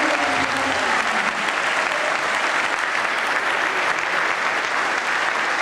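A crowd applauding steadily, with a voice or two calling out in the first second.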